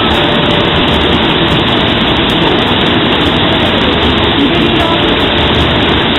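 Hot spring water pouring vigorously down the Yubatake cascade: a loud, steady rush.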